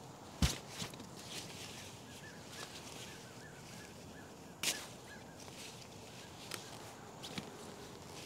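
A few sharp snaps and clicks as vegetable plants are handled and picked, the loudest about half a second in and again just before the five-second mark. A faint run of quick high chirps sounds in between.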